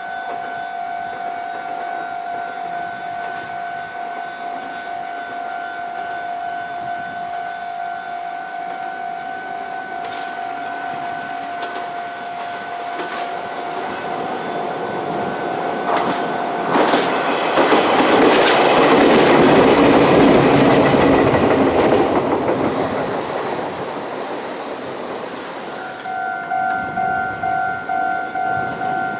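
Japanese railway level-crossing alarm bell ringing as a Meitetsu electric train approaches. About 17 seconds in the train runs over the crossing, its wheels rumbling and clacking on the rails for several seconds, which is the loudest part. Near the end another crossing's bell starts up, ringing in a quick, pulsing rhythm.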